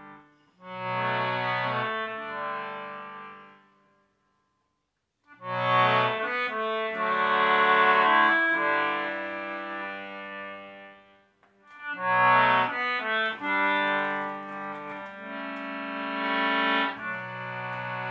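Dipper baritone concertina playing a tune in chords, with low held bass notes under the melody. It stops for about a second around four seconds in, then starts again.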